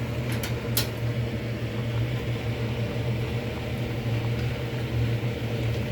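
Steady fan-like machine hum, with two light clicks in the first second.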